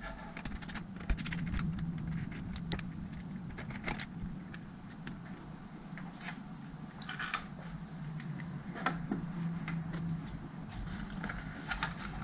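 Small clicks, taps and rattles of plastic and metal laptop parts being handled during disassembly. A low steady hum runs underneath.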